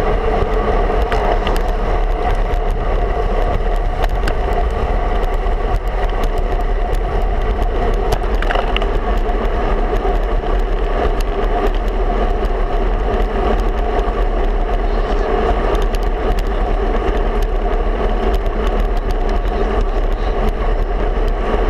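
Wind and road noise from a road bike rolling along asphalt, picked up by a handlebar-mounted camera. Wind buffets the microphone with a steady low rumble, over tyre hum and many small ticks and rattles from the rough road surface.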